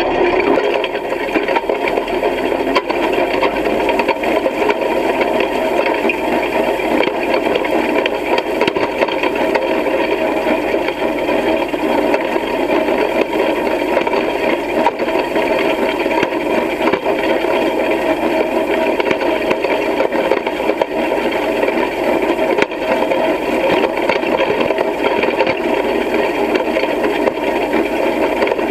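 Hay rake working through cut hay, its turning reel and steel tines rattling and clattering steadily without a break.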